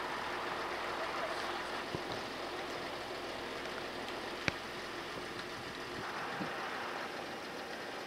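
Steady rushing hiss of water pouring from an outlet on a moored fishing boat's hull into the harbour, over a steady machinery hum. A single sharp click comes about four and a half seconds in.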